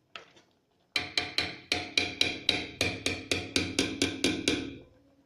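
A quick, even series of about fifteen ringing metallic taps, roughly four a second, lasting close to four seconds.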